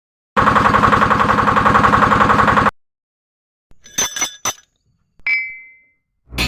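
A loud, evenly pulsing buzz at a steady pitch for about two seconds, cut off abruptly. After a pause come a few sharp clinks and then a single ringing ding that fades out, like edited intro sound effects.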